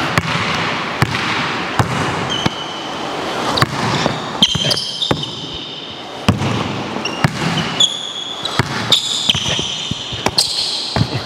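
A basketball bouncing on a wooden gym floor, dribbled at an uneven pace of about one bounce a second. From a couple of seconds in, sneakers squeak sharply on the court several times during the footwork.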